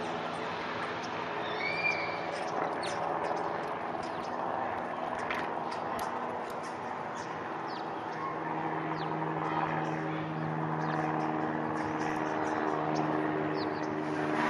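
Steady droning hum of a small plane's engine, growing louder about halfway through, with a few bird chirps near the start over outdoor background noise.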